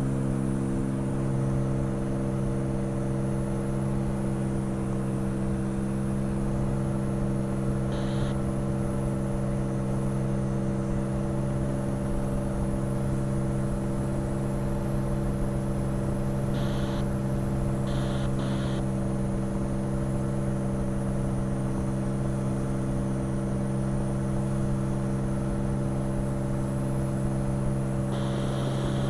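Cirrus SR20's six-cylinder Continental IO-360 engine and propeller running steadily at full takeoff power in the initial climb, heard from inside the cabin as an even drone.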